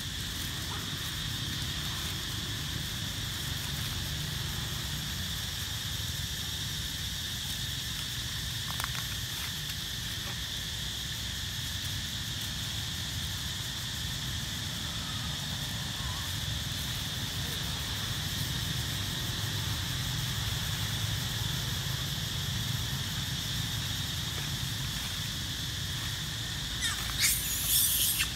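Steady drone of insects under a low rumble. About a second before the end, a monkey gives a run of loud, shrill screams.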